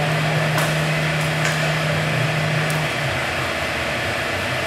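Steady mechanical hum of a servo-hydraulic loading rig running a fatigue test on a concrete girder. A low steady tone in the hum stops about three seconds in, and a few faint sharp ticks sound during the first three seconds.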